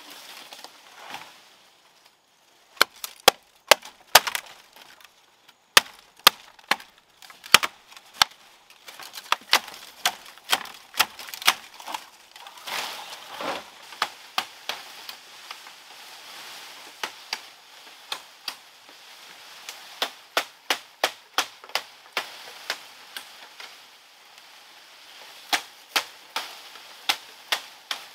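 Machete chopping bamboo: sharp cracking blows, mostly in quick runs of several strikes about two a second, with short pauses between the runs.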